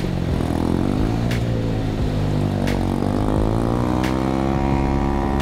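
The engine of a 1964 Jiger 152 amphibious six-wheel ATV running while it drives through river water, its pitch rising and falling slightly. A sharp click recurs about every second and a third.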